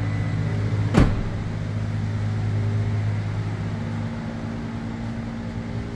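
Toyota Tacoma engine running at idle with a steady low hum, and one sharp knock about a second in. The engine is being run in short spells to purge air from the power steering system after a steering rack replacement.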